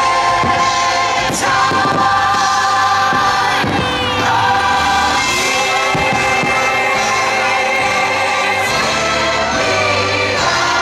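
Christmas fireworks show soundtrack: a choir singing long held notes over music, with a few firework bangs in the first few seconds.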